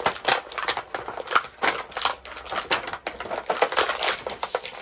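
Action figure packaging being handled and opened: a dense, irregular run of crinkles and sharp clicks as the figure is worked out of its box.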